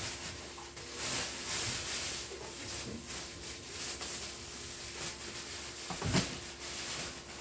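Plastic shopping bag rustling and crinkling as items are lifted and handled, with a single soft thump about six seconds in.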